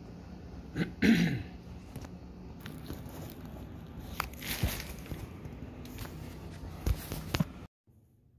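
Clear plastic stretch wrap being pulled and unwound from a bicycle, crinkling and rustling in irregular bursts, with a few sharp knocks of handling. The sound cuts off abruptly shortly before the end.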